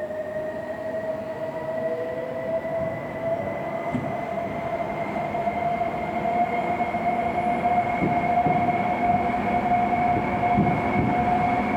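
Toyota RAV4 hybrid's electric drive whining: two steady tones rising slowly in pitch as the car gathers speed, over a low rumble of road noise.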